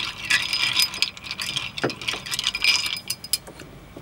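Ice cubes clinking against a glass as a bar spoon stirs a dry martini to chill it: a quick, continuous run of small clinks that thins out after about three seconds.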